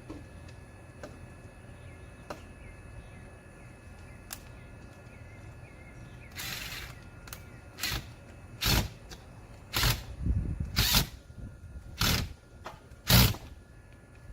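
Six sharp knocks about a second apart from work on a light fixture's metal mounting bracket, after a short rustle about six seconds in, over low wind noise on the microphone.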